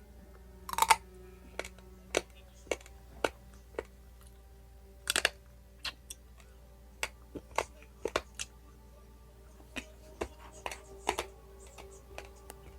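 Dry, uncooked spaghetti being crunched and snapped between the teeth: irregular sharp crunches, loudest about a second in and again about five seconds in.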